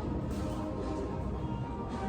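Café background music playing steadily, with a few faint taps of laptop keyboard typing.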